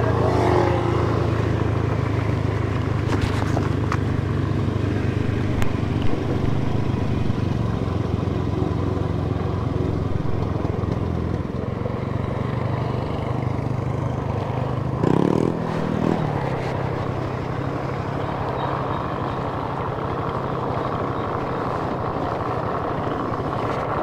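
Motorcycle engine running steadily while being ridden along a road. There is a short rising tone about fifteen seconds in.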